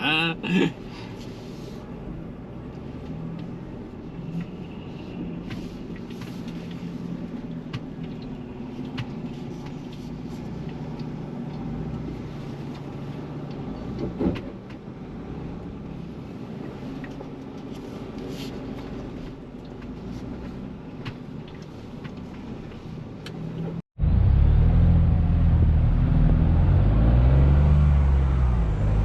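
Sixth-generation Ford Bronco crawling over rough trail: a steady low engine hum with scattered clinks and knocks from the truck. About 24 seconds in, a cut brings a much louder engine note that rises and falls with the throttle.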